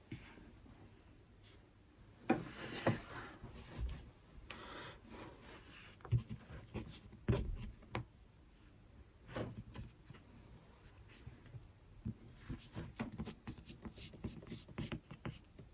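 Irregular taps, knocks and scraping of baking utensils and biscuit dough on a kitchen worktop, with a few sharper knocks among softer rubbing.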